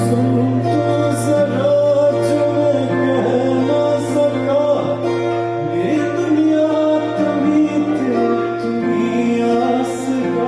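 Live music through a sound system during a sound check: a held bass drone under sustained tones, a wavering melody line that may be a singing voice, and cymbal-like strokes about once a second.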